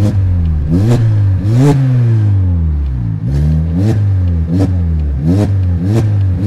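Hyundai i40's 2.0-litre naturally aspirated four-cylinder engine being free-revved while parked, in about eight quick blips. Each blip climbs sharply and drops back. The exhaust has both catalytic converters removed and replaced with flame arrestors.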